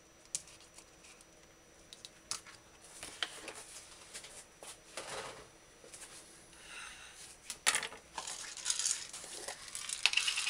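Scattered knocks, taps and scrapes of kitchen things being handled on a countertop as a plastic cutting board and knife are cleared away, turning into a denser run of scraping and rattling near the end as a spice jar is picked up.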